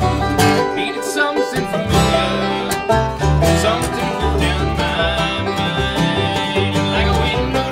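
Acoustic bluegrass band playing live: banjo and mandolin picking over strummed acoustic guitar, with a plucked upright bass line underneath.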